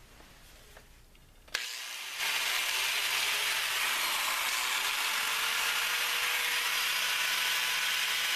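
A 4 1/2 inch electric angle grinder switched on about a second and a half in, spinning up and then running steadily at speed. This is the test run on freshly fitted replacement motor brushes.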